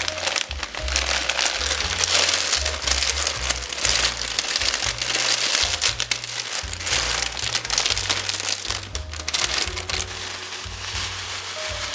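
Background music with a bass line, under a dense crisp crunching and crinkling that eases off about ten seconds in: dry vermicelli being broken and handled.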